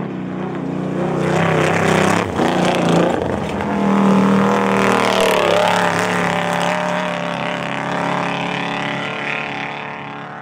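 Off-road race truck's engine running hard as it drives past, growing louder over the first few seconds, holding, then fading away near the end.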